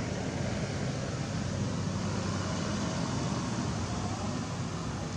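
Steady low rumble with an even hiss over it, unchanging throughout: outdoor background noise.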